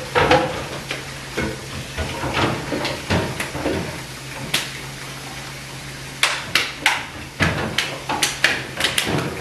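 Hands slapping and patting together in a run of sharp claps, scattered at first and coming quicker in the last few seconds.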